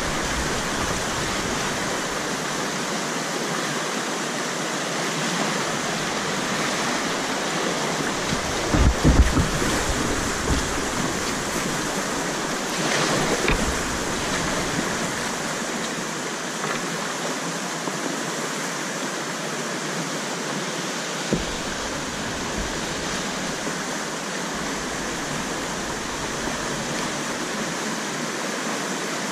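Rushing whitewater of a shallow, rocky river rapid, a steady roar of running water heard from a kayak in the current. A few low thuds come about nine seconds in.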